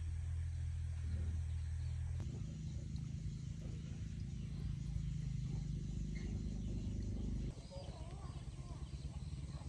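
A low steady rumble, broken off about two seconds in by a small stream gurgling over stones, which stops abruptly near the end and leaves quieter outdoor ambience with faint bird calls.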